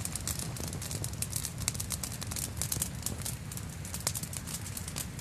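Small campfire crackling: irregular sharp pops and snaps over a low steady rumble.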